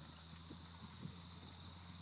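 Faint, steady low drone of a Beechcraft Bonanza's flat-six piston engine heard from a distance across the airstrip.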